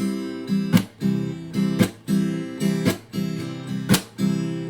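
Acoustic guitar strummed in a steady rhythm, with a strong accented stroke about once a second and lighter strums between. It is an instrumental lead-in before a song.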